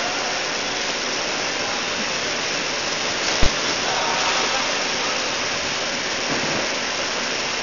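A steady rushing hiss throughout, with one sharp thud about three and a half seconds in as two grapplers in padded suits fall onto the mat.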